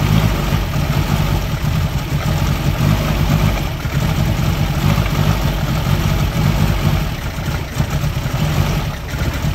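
1971 MG Midget's 1275 cc A-series four-cylinder engine idling with the rocker cover off and the valve gear exposed. It is running terribly, unevenly, with its loudness rising and falling.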